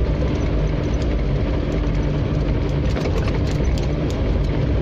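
Off-road 4x4 vehicle's engine running steadily while under way on a rough track, with many small rattles and knocks scattered through it.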